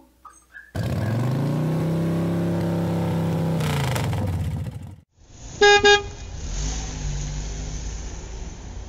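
Cartoon car sound effect: an engine running, its pitch rising as it starts, holding steady, then dropping away after about four seconds. Then two quick horn toots, followed by a lower engine rumble.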